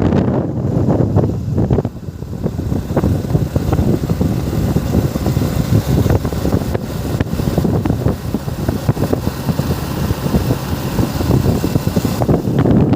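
Wind buffeting the microphone on a moving motorcycle, a heavy, gusting low rumble over the bike's running and road noise.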